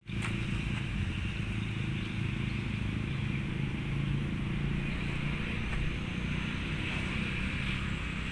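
Steady hum of road traffic circling the roundabout, with a low engine drone.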